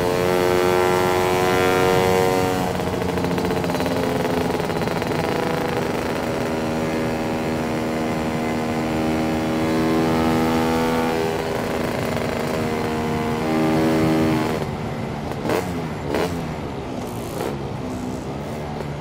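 Lambretta scooter's two-stroke single-cylinder engine breathing through a SIP Nordspeed touring exhaust, running at road speed under throttle and rising in pitch about ten seconds in. About fifteen seconds in the throttle closes and the engine note drops away as the scooter slows, with a few short knocks.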